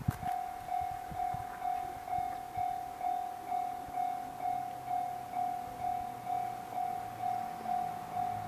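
Japanese level-crossing warning bell starting suddenly and ringing one high tone over and over, about twice a second, the signal that a train is approaching the crossing. A low rumble builds in the second half.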